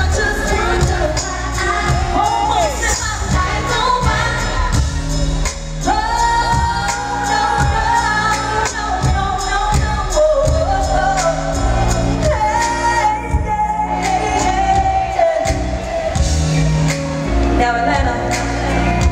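Female R&B lead vocal sung live over a full band with drums, bass and keyboards. She holds long sung notes over a steady drum beat.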